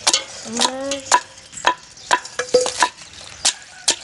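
Raw crabs being pounded with a stone, a run of sharp knocks about twice a second to crush them for crab rasam. A short rising vocal sound about half a second in.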